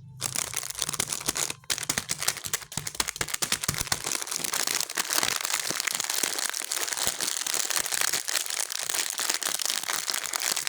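Plastic snack wrappers crinkling and rustling as they are handled and opened: a dense, continuous crackle.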